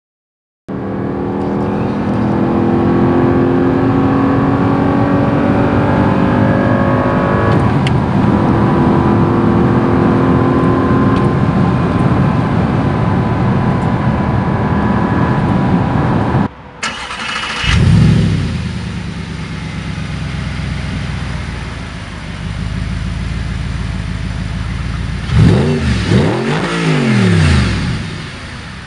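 Audi R8's 4.2 FSI V8 engine running at steady, high revs for about sixteen seconds. After a sudden cut it idles and is blipped: one rev rising and falling shortly after the cut, and two quick rev blips near the end.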